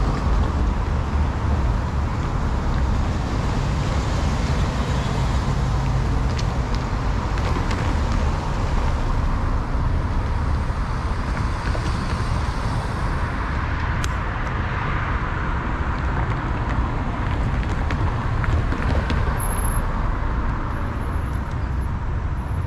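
Road traffic: cars driving across a railroad level crossing, a steady rumble of tyres and engines.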